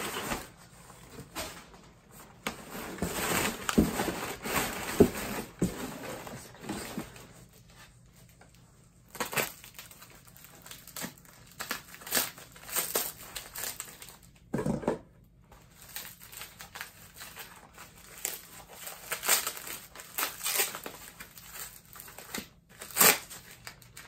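Packing material crinkling and crumpling as parts are unwrapped by hand, in irregular handfuls with short pauses, busiest in the first few seconds; a dull knock about halfway through.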